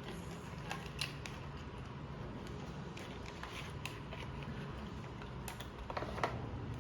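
Faint rustling and scattered light clicks of a puzzle's packaging being opened and handled, over a low steady hum.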